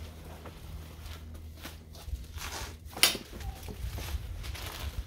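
Plastic packaging bags rustling and crinkling as parts are pulled out of a cardboard box, with one sharp snap about three seconds in.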